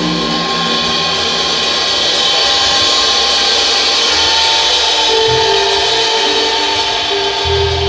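Band music from a jam-session demo: held notes over a loud hissing wash that swells in the middle, with low notes coming in near the end.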